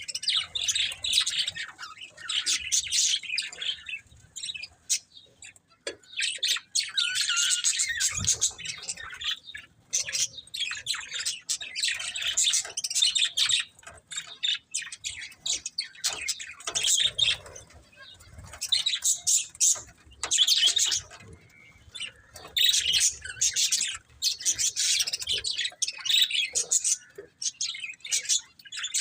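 Budgerigars chattering and chirping, in quick twittering warbles that come in bouts a second or two long with short pauses between them.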